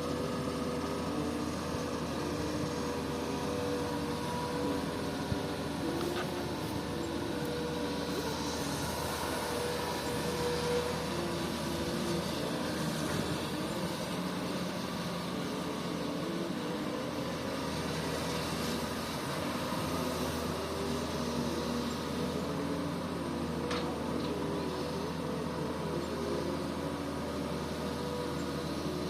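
Komatsu PC-200 hydraulic excavator's diesel engine running steadily under working load, its pitch stepping slightly up and down, with a few faint clicks.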